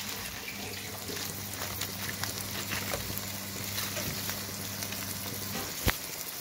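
Chopped tomatoes and onions frying in hot oil in a nonstick wok, a steady sizzle with small crackles, just after biryani masala has been added. A single sharp knock comes near the end.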